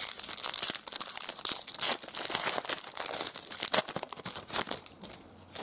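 Foil wrapper of a trading card pack being torn open and crinkled by hand as the cards are pulled free, a dense crackling that dies down about five seconds in.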